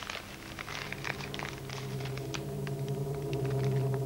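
Light crackling clicks thin out and stop about two and a half seconds in, while a steady, low droning hum with several overtones fades in and grows louder.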